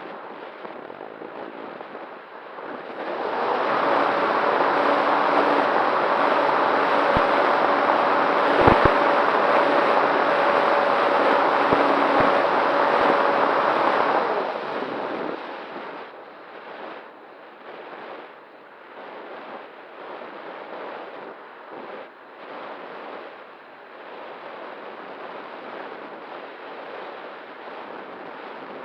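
Wind rushing over an E-flite Night Radian electric glider, picked up by its onboard FPV camera. About three seconds in, its electric motor and propeller start with a steady whine, run for about eleven seconds, then cut off, leaving only the wind rush of the glide.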